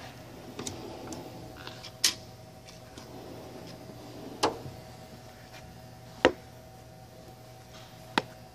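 Tools and drawers of a Snap-on KRL1003 steel tool chest being handled: four sharp clacks about two seconds apart, with fainter clicks between them, over a steady low hum.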